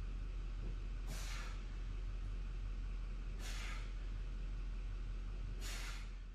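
A man exhaling hard through the mouth with each dumbbell press, three sharp breaths about two seconds apart, over a steady low hum.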